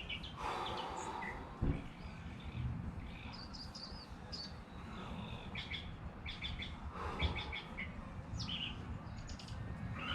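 Songbirds chirping repeatedly in short calls, with a single soft thump a little under two seconds in.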